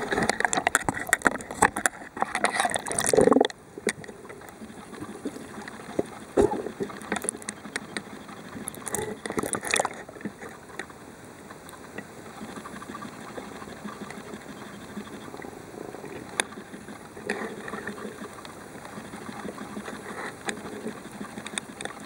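Muffled underwater water noise picked up by a submerged camera. For the first few seconds there is dense crackling, splashing and knocking. After that it settles into a quieter steady hiss with occasional sharp clicks.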